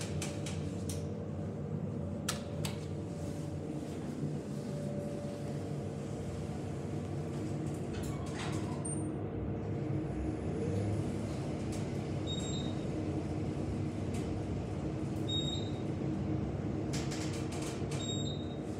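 ThyssenKrupp traction elevator travelling down, heard inside the cab: a steady hum of the moving car, with a few clicks near the start and three short high beeps in the second half.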